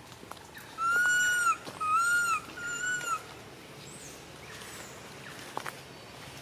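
A baby monkey crying: three high, drawn-out wails in quick succession, each rising and falling slightly in pitch, starting about a second in.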